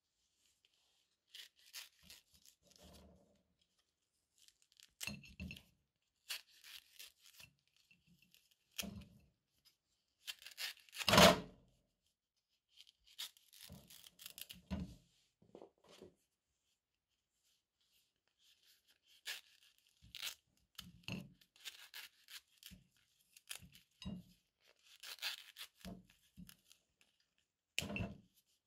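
A kitchen knife cutting through gold-painted banana skins in a series of short tearing, rasping cuts with pauses between them. The loudest cut comes about eleven seconds in.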